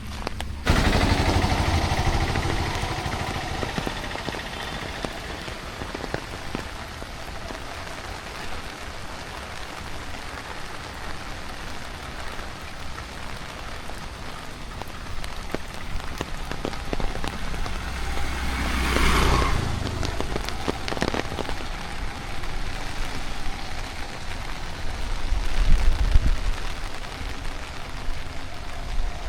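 Steady monsoon rain falling on surfaces, starting abruptly about a second in. A louder passing swell with a low rumble near two-thirds of the way through, and another low rumble near the end, sound like vehicles going by.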